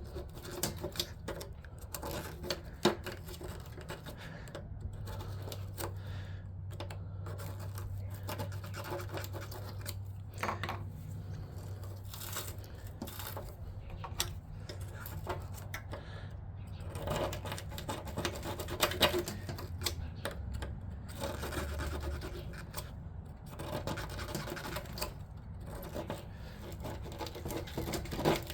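Metal pick tool scraping and picking at rust packed between a steel spacer sleeve and a rubber mount on a window air conditioner chassis, in irregular scratches and clicks. A low steady hum runs under it from a few seconds in until past the middle.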